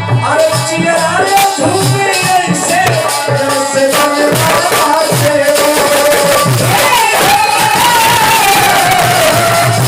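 Indian folk music: a gliding melodic lead over a steady hand-drum beat.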